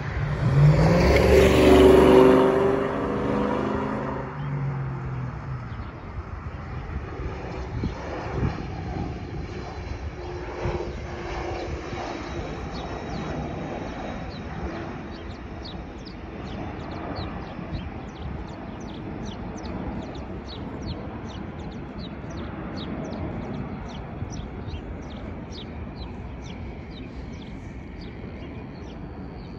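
An airplane on landing approach passes low overhead, loudest about two seconds in, its engine pitch falling as it goes by and fading to a distant rumble. From about halfway, a small bird chirps repeatedly at a high pitch, about two chirps a second.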